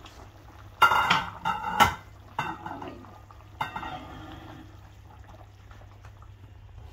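Aluminium cooking pan clattering and scraping against the metal grate of a gas stove as it is moved, with a loud burst of clanks about a second in and a few lighter knocks after, over a steady low hum.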